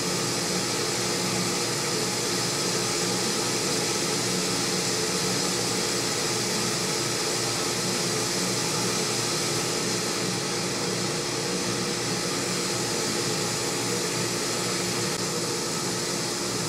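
Steady fan-like hum and hiss of running equipment, with a few faint steady low tones; it does not change as the metal heats.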